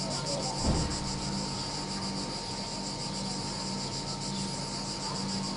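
A chorus of cicadas in the trees: a steady, fast-pulsing high buzz. A brief low thump comes about a second in.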